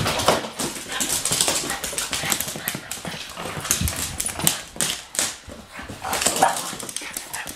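Two dogs play-wrestling on a wooden floor: a busy clatter of claws clicking and skittering on the boards, with scuffling and short dog vocal sounds mixed in.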